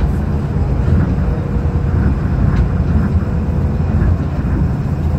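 Tokyo Monorail rubber-tyred train running along its beam, heard from inside the car: a steady low rumble with a faint, even whine over it, as it moves out past a station platform.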